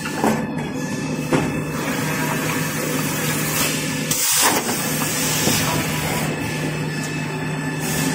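Toilet paper and kitchen towel rewinding line running: a steady machine din of noise with a constant low hum, briefly breaking off about halfway through.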